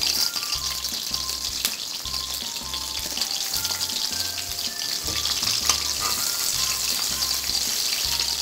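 Garlic cloves sizzling steadily in hot oil in a wok, frying until fragrant, and stirred with a metal spatula near the end. Soft background music plays underneath.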